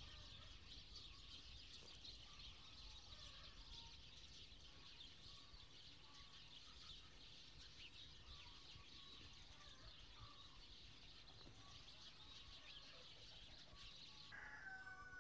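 Faint rural ambience: a dense, steady high chirping of insects and birds, with scattered short bird calls. Near the end, after a cut, a rooster crows with a drawn-out, slightly falling call.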